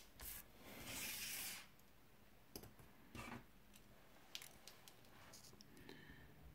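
Faint paper and pen handling: a soft rustle of a hand sliding over a paper worksheet about half a second in, a few light clicks and taps, then a pen starting to scratch on the paper near the end.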